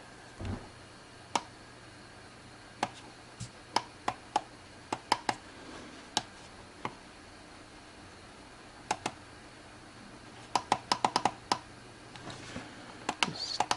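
Sharp plastic clicks of an alarm clock's push buttons being pressed while it is being set, one at a time and spaced out, then a quick run of presses late on.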